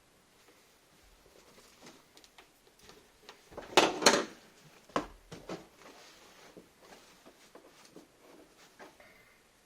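Rustling and knocking from felt and carpet being worked into a car footwell, with a loud burst of rustles and knocks about four seconds in and a sharp knock about a second later.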